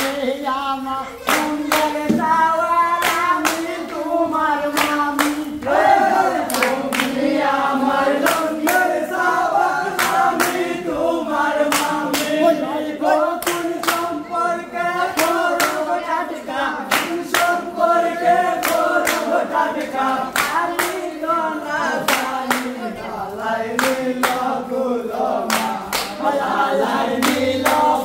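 A group of men singing a Sylheti dhamail folk song in chorus, with hand claps keeping time at about two a second.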